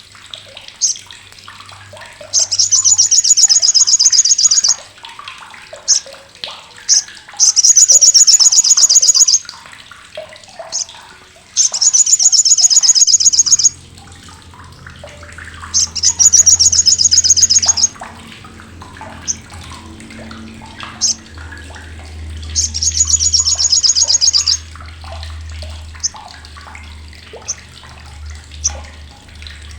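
Sogok ontong (sriganti) bird giving its harsh, sharp rattling 'crecetan' calls: five loud, fast-pulsed buzzy bursts of about two seconds each, with short chips between them. A low hum comes in about halfway through.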